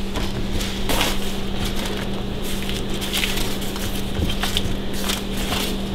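Sheets of filo dough rustling and crinkling as hands lay the last sheet over the pan and fold it in at the edges, with a steady low hum underneath.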